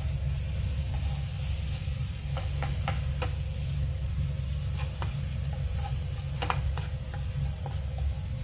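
Minced garlic frying in a nonstick pan, a faint sizzle with scattered sharp clicks and taps as a spatula stirs it, over a steady low hum.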